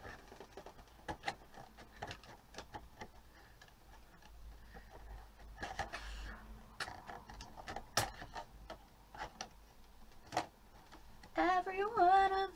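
Small nail scissors snipping at a doll box's plastic and card packaging: an uneven run of sharp clicks and snips. A woman starts singing near the end.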